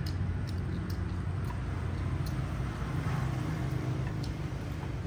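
A steady low motor drone, like an engine running at a distance, with a few faint light clicks of chopsticks against ceramic bowls.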